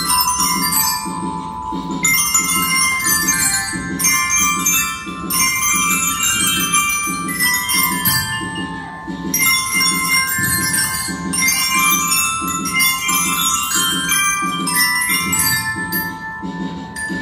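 A group of children's toy metallophones (colour-barred glockenspiels) played together with mallets: bright, ringing notes struck in short runs that restart every second or two, over a steady low beat of about two pulses a second.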